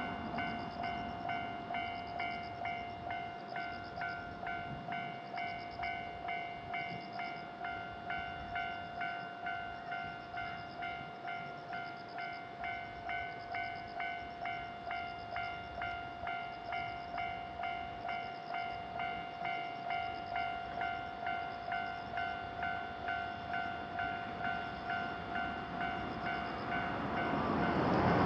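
Japanese railroad crossing warning bell ringing its steady 'kan-kan' clang, about two strikes a second. Near the end a train's noise swells in over it.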